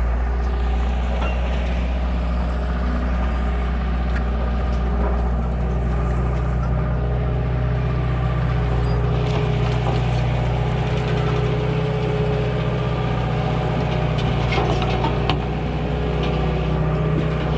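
An engine running steadily at a constant speed, with a few faint clicks and knocks over it.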